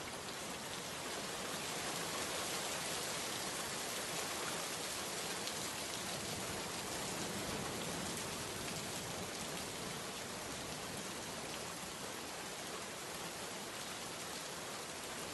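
Steady rain ambience: an even, unbroken hiss of rainfall.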